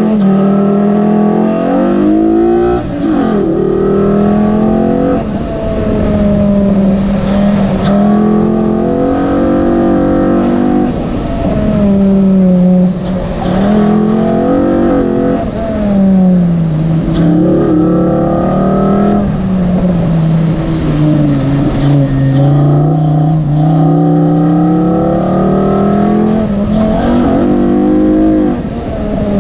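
Mk5 Volkswagen Rabbit's 2.5-litre five-cylinder engine breathing through a short runner intake, its loud intake noise climbing in pitch under hard acceleration and dropping sharply on lifts and shifts, over and over.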